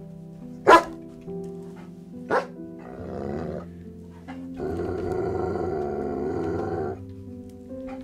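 A dog barks twice, sharply, about a second and a half apart, the first bark the louder, then gives a rough growl lasting about two seconds, over background music.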